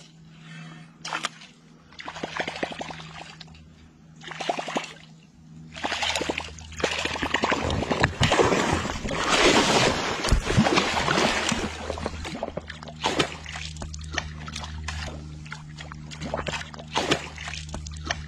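Water splashing and sloshing in irregular bursts as a hooked fish thrashes at the surface against a bent rod, the busiest splashing in the middle. A low steady hum runs underneath in the second half.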